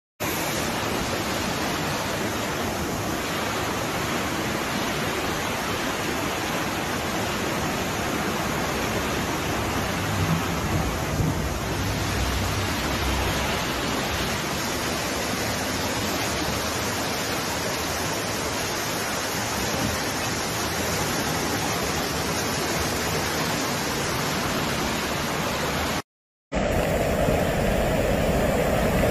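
Steady rushing of fast floodwater. Near the end, after a brief silent cut, a louder rush of a flash-flood torrent.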